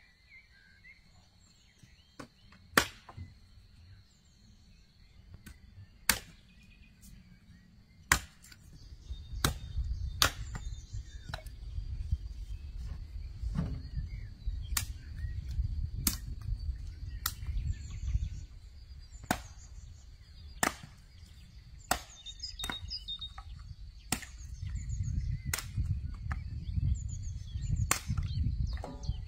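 Sharp chopping strikes, one at a time and spaced irregularly about a second or two apart.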